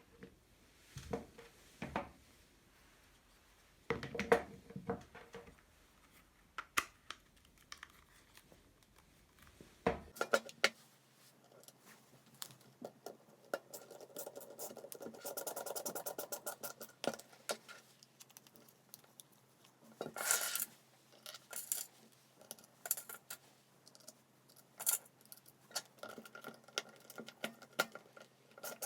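Irregular light clicks, taps and scrapes of small plastic and metal parts being handled, as in taking apart or reassembling a cordless impact driver's housing.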